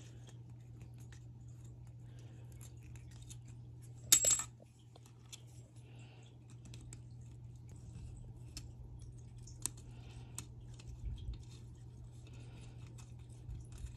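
Small metal parts being handled: scattered light clicks and taps, with one sharp, ringing metallic clink about four seconds in, over a low steady hum.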